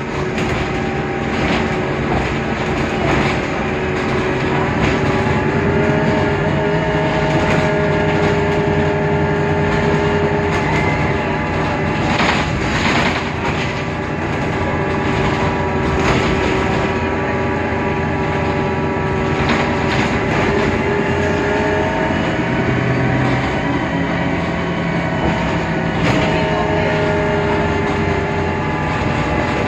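Mercedes-Benz Citaro O530 Ü city bus driving, its OM 906 hLA diesel and Voith DIWA 864.3E automatic gearbox giving a steady whine of several tones that rise and fall slowly with speed: the peculiar running sound this Citaro is known for. Now and then a few short knocks and rattles come through, loudest about twelve seconds in.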